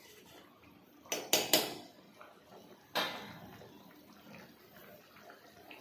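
Kitchen utensils knocking against a cooking pot: a cluster of three sharp clatters about a second in, then a single strike about three seconds in that rings briefly.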